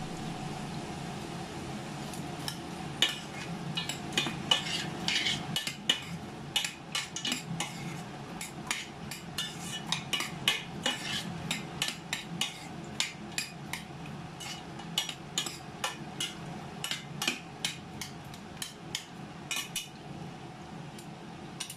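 Metal spoon stirring mixed vegetables in a stainless steel pot: a long irregular run of clinks and scrapes against the pot, starting a couple of seconds in and stopping shortly before the end.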